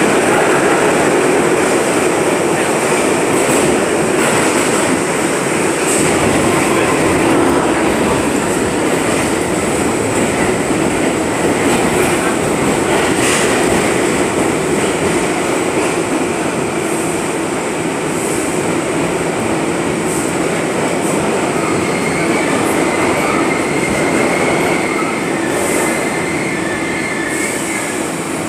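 R62A subway car heard from inside, running on the rails with a steady rumble and clatter of wheels on track. Near the end it eases off while pulling into a station, with a faint high squeal of wheels or brakes.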